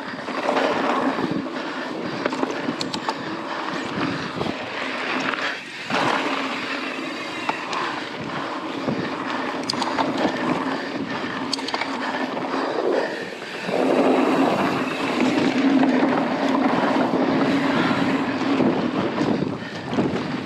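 Mountain bike riding over a dirt singletrack trail: the Bontrager XR4 knobby tyres rolling with the bike rattling and wind on the microphone. The rolling noise grows louder about two-thirds of the way in.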